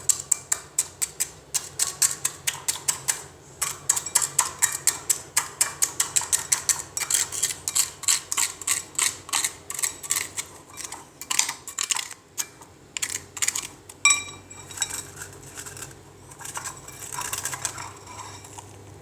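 Freezer frost ice being bitten and chewed, a fast run of crisp crunches, several a second, that thins out to scattered crunches after about twelve seconds.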